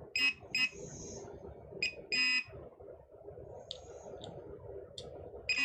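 Handheld metal detector beeping in short, irregular high-pitched beeps, about five of them, one held a little longer, as it reacts to metal. The owner puts its erratic beeping down to a metal ring used in its own build.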